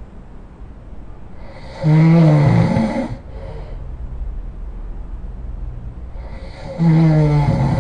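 A person snoring loudly: two long snores, each about a second long, about five seconds apart. The first ends in a short second snort, and there is a quieter low rumble of breathing between them.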